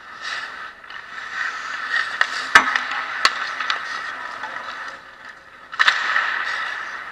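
Ice hockey skates scraping and carving the ice, with two sharp clacks of stick and puck about two and a half and three seconds in, and a sudden louder scrape about six seconds in.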